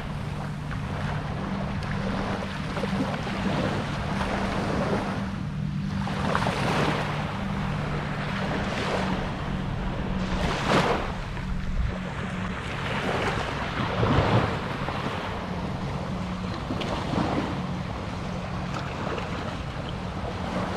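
Small waves washing up on a sandy beach, swelling every few seconds, with wind on the microphone and a low steady hum underneath.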